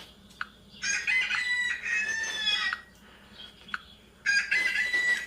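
Rooster crowing twice: one long crow about a second in, and another starting near the end.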